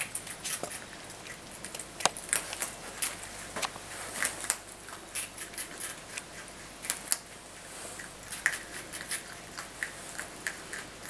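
Woodchuck chewing a treat held to its mouth: irregular crisp crunching clicks, several a second with short pauses.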